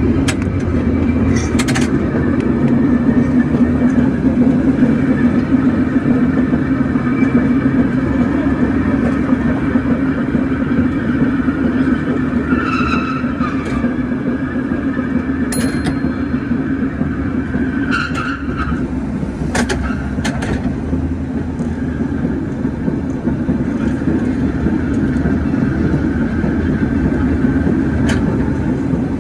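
San Francisco California Street cable car riding along its rails: a steady low hum and rattle throughout, with a few short clanks and brief squeaks scattered through.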